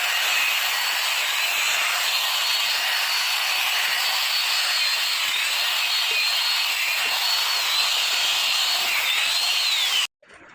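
A power tool running steadily, with a high whine that wavers in pitch; it cuts off abruptly near the end.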